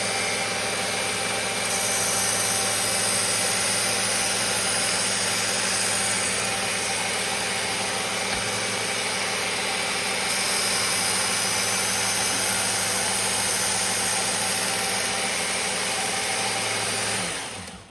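Electric belt grinder running steadily while a chef's knife edge is ground on the moving belt: two passes of brighter, louder grinding hiss over the motor and belt hum, as the last light passes that polish the edge. The sound drops away sharply near the end.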